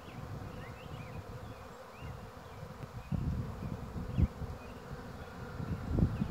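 Honey bees from a freshly shaken-in package buzzing in the air around the hive, a steady hum. A few low thumps break in about three seconds in, at about four seconds, and again near the end.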